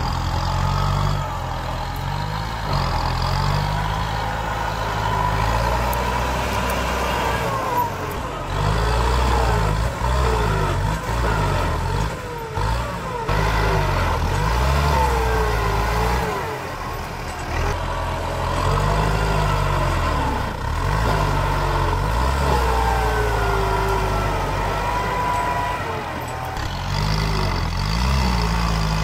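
Kubota M8540 tractor's diesel engine working under load as its front blade pushes earth and brush, the engine note rising and falling over and over as the load changes.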